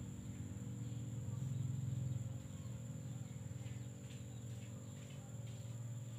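Faint, steady high-pitched insect trilling, like crickets, over a low steady hum.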